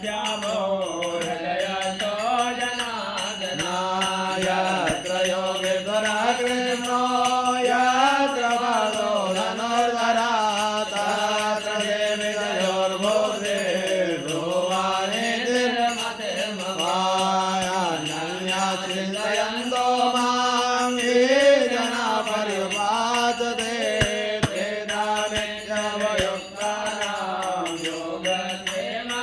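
Mantra chanting: a single voice carrying a slow, melodic line that rises and falls, held without pause.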